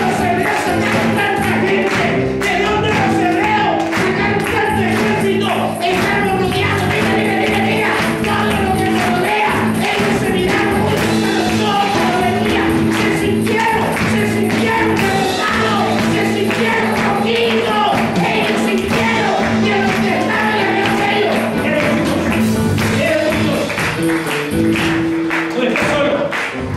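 Live gospel worship music with a tambourine and a steady beat, and people singing along.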